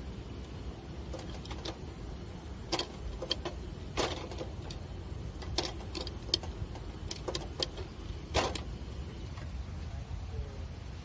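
Irregular sharp metal clicks and clacks of a hinged hot sandwich maker being handled and turned over on a gas stove, about a dozen of them, the loudest about four and eight and a half seconds in, over a low steady rumble.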